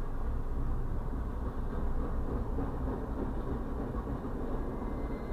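Double-stack intermodal freight cars rolling past at close range: a steady rumble of wheels on rail, heard muffled from inside a car.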